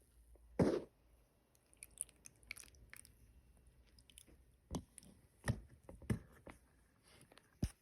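Slime being handled and squished by hand: irregular sticky squelches and clicks, the loudest about half a second in.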